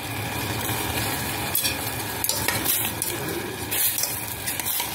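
Noodle broth simmering steadily in a stainless steel pot while a utensil stirs through the noodles, with a few light clicks and scrapes against the pot.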